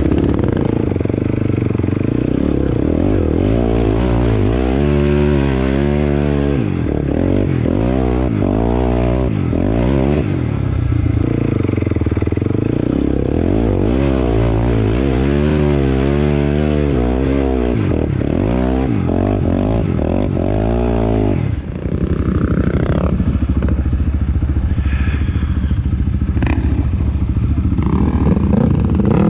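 Single-cylinder sport quad engine under riding load, its pitch rising and falling again and again as the throttle is opened and eased off.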